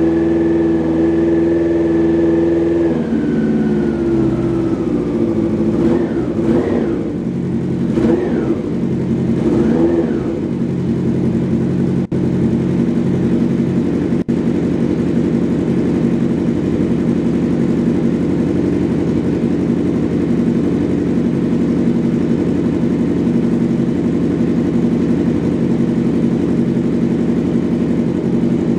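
Honda Nighthawk 700S inline-four engine running at a raised idle that drops to a lower idle about three seconds in, then revved in three quick blips of the throttle, then idling steadily. The engine has just been started again after its cylinder head was reinstalled.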